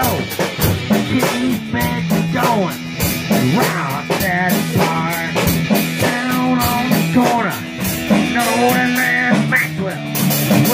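Rock band jamming: drum kit with frequent cymbal and drum hits, electric guitar holding low notes, and a harmonica wailing a lead line that bends in pitch.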